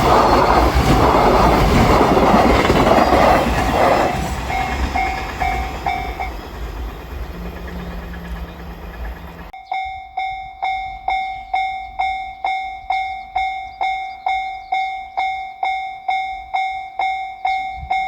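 A freight train's wagons rumble and clatter past over the rails, fading away over the first few seconds. A Japanese level-crossing alarm bell rings on, faintly under the train noise and then clearly from about halfway, at about two strikes a second.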